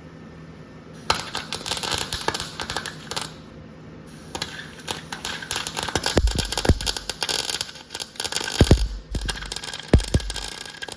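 Welder arc crackling in three runs of welding, a short bead and then two longer ones, with a few dull thuds between.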